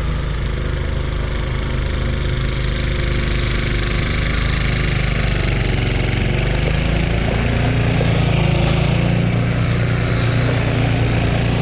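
An engine running steadily, growing a little louder about two thirds of the way in.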